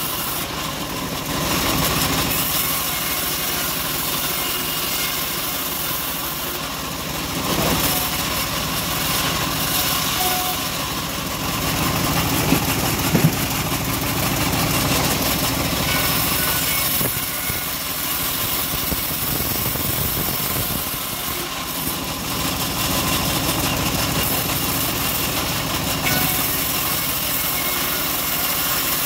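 Homemade band sawmill running, its band blade ripping old teak into boards; the cutting noise swells and eases several times as the wood is fed through, with two sharp knocks a little before halfway.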